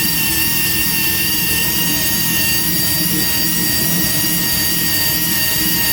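Tire buffer running steadily with a constant high whine, grinding the inner liner of a tire smooth around a nail puncture to prepare it for a patch.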